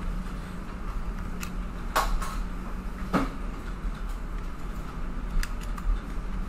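Mouse clicks and keyboard key presses over a steady electrical hum and room hiss, with two louder clicks about two and three seconds in and a few fainter ones later.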